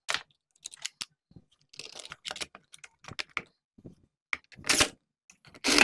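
Light clicks and knocks of a chainsaw's plastic top cover being fitted and seated over the engine, with two louder knocks near the end.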